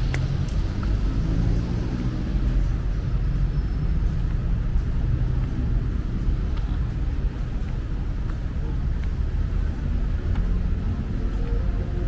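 Street traffic: vehicle engines running close by in a low, steady rumble.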